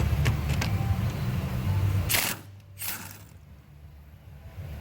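Impact wrench running for about two seconds, loosening the nut on a rear stabilizer link stud, followed by two short sharp bursts.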